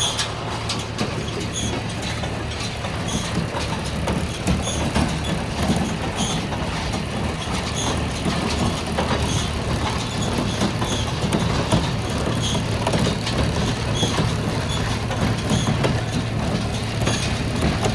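Claas Rollant 44 round baler running behind its tractor, a steady low mechanical drone of engine and driveline with a regular light tick a little faster than once a second.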